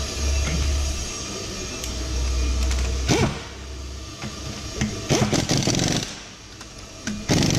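Ammco 4000 brake lathe running with a steady low hum that dies away about four seconds in, followed by several short noisy bursts of handling or clatter.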